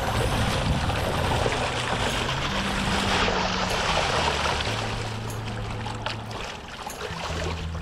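Spawning lake sturgeon thrashing at the surface in shallow water against the rocks: loud, continuous splashing that eases off after about six seconds.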